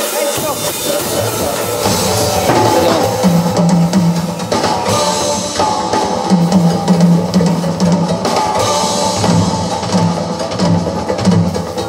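A drum kit is being played along to recorded rock backing music. Drum and cymbal hits sit over a steady bass line, which comes in at the start.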